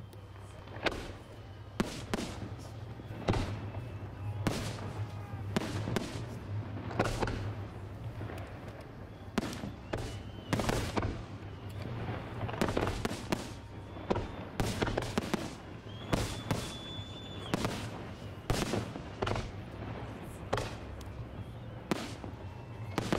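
Fireworks display: a long run of sharp bangs from bursting fireworks, coming about once a second at irregular spacing, some in quick pairs.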